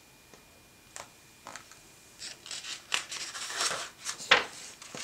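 Page of a hardcover picture book being turned by hand: paper rustling and sliding in short scrapes, with one sharp snap near the end.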